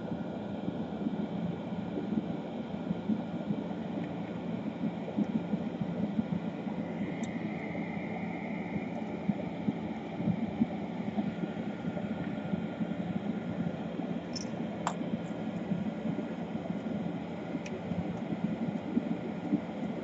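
Steady rushing background noise with a faint low hum, and a few faint clicks, two of them close together about three-quarters of the way through.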